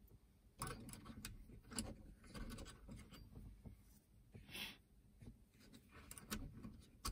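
Faint clicks and rubbing as fingers handle a small LED festoon bulb and press it into the plastic socket of a Honda Pilot's overhead map light, with scattered light ticks and a brief scrape about halfway through.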